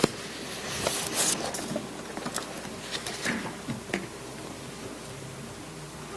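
Sheets of paper rustling and being shuffled, with a few light knocks and clicks as a Bible is closed on them at a wooden pulpit. The handling stops about four seconds in, leaving quiet room tone.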